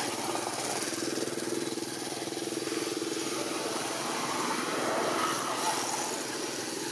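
A motor engine running steadily with a fast, even pulsing hum.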